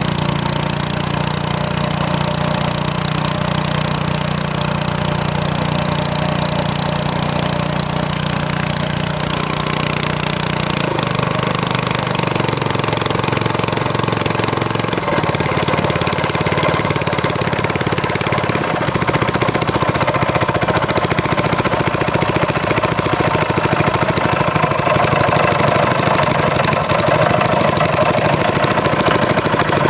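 A small engine running steadily throughout, with its pitch changing about 11 and 15 seconds in, then a little louder from about 19 seconds in.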